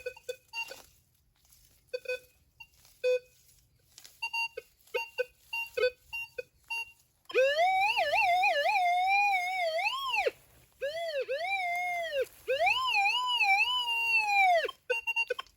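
Metal detector sweeping over the ground: short scattered beeps at first, then a loud wavering target tone in three long sweeps over the last half, the detector's sign of a good signal that typically means a non-ferrous object.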